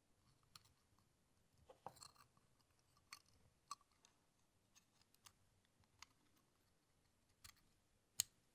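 Faint, irregular clicks and taps of small plastic model parts being handled and fitted together: the plastic exhaust of a 1/12 Tamiya Ducati 916 kit being pressed onto the model's frame. There is a small cluster of clicks about two seconds in and the sharpest click near the end.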